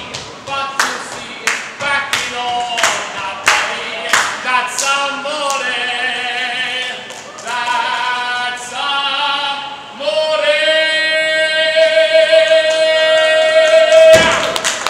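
A man singing solo and unaccompanied, moving from note to note, then holding one long high note from about ten seconds in until the end of the song.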